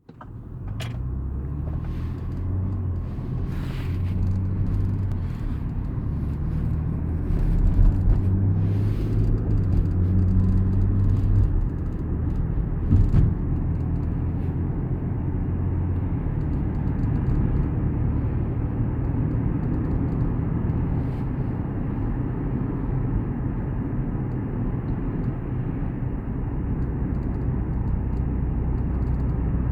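Land Rover LR4 running with a steady low rumble, with a few sharp clicks standing out over it in the first dozen seconds: the click noise the owner is trying to track down.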